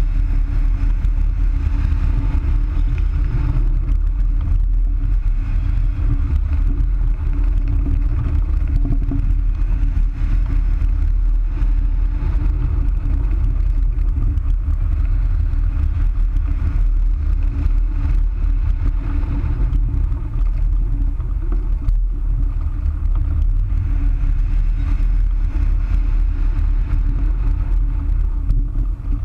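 Airflow buffeting a wing-mounted camera's microphone on a hang glider in flight: a loud, steady, low rumble with a steady hum running through it.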